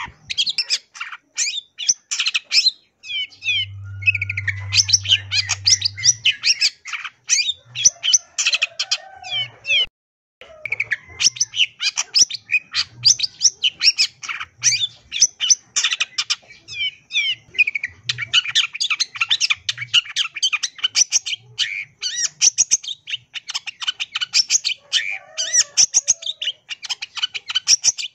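Long-tailed shrike singing a fast, unbroken stream of chirps, trills and mimicked calls of other birds, stopping briefly about ten seconds in.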